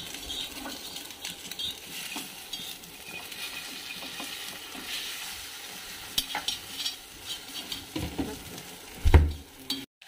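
An egg sizzling as it fries on a flat griddle pan, with a metal spoon scraping and clicking against the pan as the egg is pressed and turned. A single loud thump about nine seconds in.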